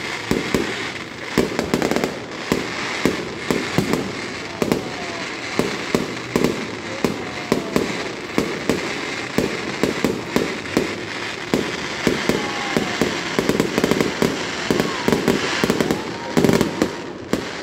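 Aerial fireworks bursting: a dense, irregular run of bangs and crackles, several a second.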